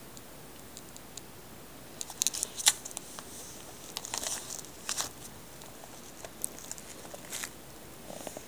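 Fingers handling CDs in a CD case, giving irregular sharp clicks and short rustles. They come in clusters about two, four to five and seven seconds in.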